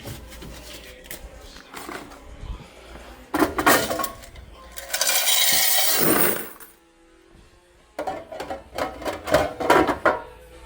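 Clinking and clattering of coins and snack packets being handled while a vending machine is emptied of money and restocked, with a loud rushing burst in the middle, over background music.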